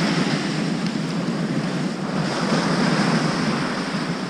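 Rough sea surf breaking and washing up a sandy beach, a steady rush, with some wind on the microphone.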